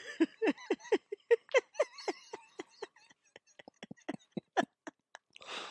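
Laughter: a run of short giggles, about four a second at first, growing fainter and farther apart toward the end.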